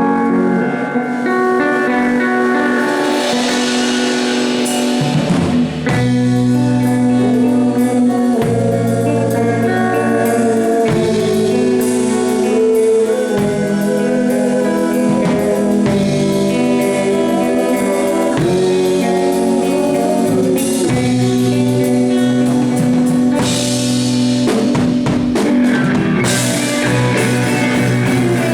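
Live blues-rock band playing a song: guitar and drum kit with singing, and a bass line coming in about five seconds in.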